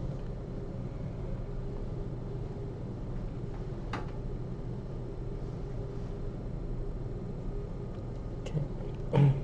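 Steady low room hum, with a faint click about four seconds in and a short, low sound near the end.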